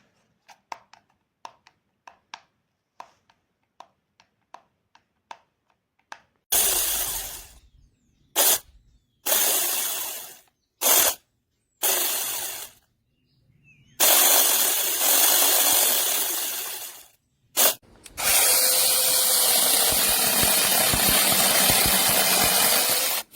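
Light clicks about twice a second, then a cordless 6-inch brushless mini chainsaw run in several short bursts that each trail off. Two longer runs follow; the last is held steady for about five seconds and stops suddenly.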